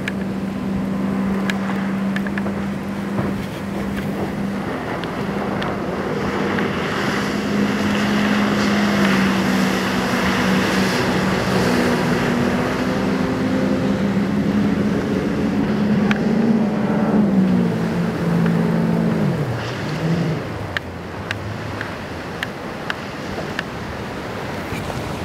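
Motorboat engine running at a steady pitch with the rush of water and wind, the rush strongest near the middle. About two-thirds of the way through, the engine note falls as the throttle comes back, then runs on at a lower pitch.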